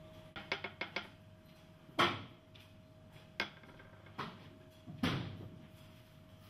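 Workbench handling sounds in a brush workshop: a quick run of about five small clicks, then four separate knocks with a short ring, the first the loudest, over a faint steady hum.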